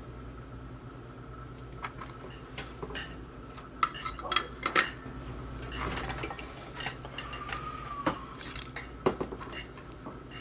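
Small hard objects clicking, clinking and clattering as they are handled by hand, in irregular knocks that cluster about four to five seconds in and again near the end. A faint steady hum with a thin high tone runs underneath.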